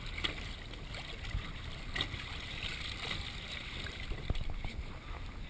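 Small waves lapping and sloshing against the hull of a small open boat, with scattered little splashes.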